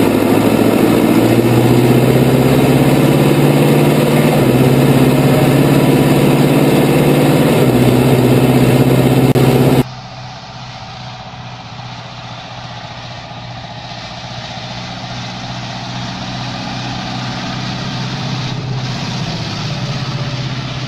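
Zetor Forterra tractor's diesel engine heard loud from inside the cab while driving, its pitch rising slowly, with a couple of small steps as it picks up speed. About halfway through it cuts abruptly to a quieter recording from the roadside: an orange Zetor tractor towing a trailer drives past, its engine getting louder as it approaches.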